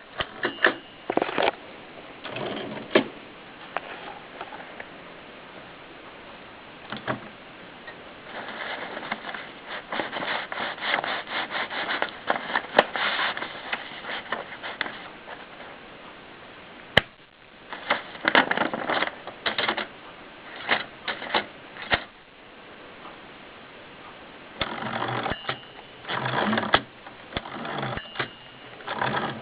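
Contessa typewriter being typed on: runs of quick key strikes with pauses between, a few scattered strikes early on, then longer runs in the middle and near the end.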